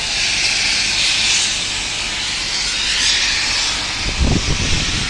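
Loud steady hissing noise, with a rough, choppy low rumble coming in about four seconds in.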